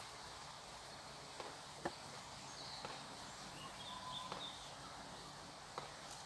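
Quiet woodland camp ambience: faint steady hiss with scattered light ticks and taps, the sharpest about two seconds in, and a few faint, brief bird chirps.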